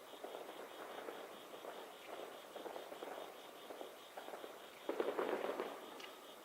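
Aerial fireworks going off: a dense run of small popping and crackling bursts, with a louder cluster about five seconds in that then dies away.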